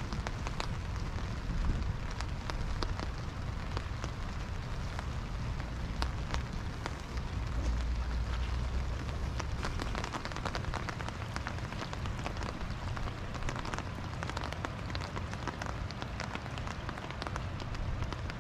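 Steady rain falling, a dense patter of many small drop taps, with a low rumble underneath that swells about eight seconds in.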